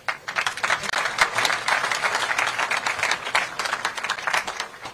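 Audience applauding, starting suddenly and dying away near the end into a few last claps.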